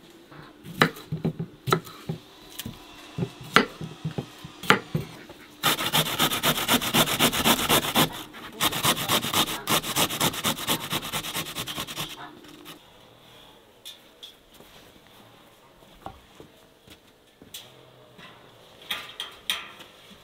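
Cucumber being grated on a stainless steel box grater: a loud run of fast, rhythmic rasping strokes lasting several seconds, with a short break partway through. Scattered knocks and clicks come before and after it.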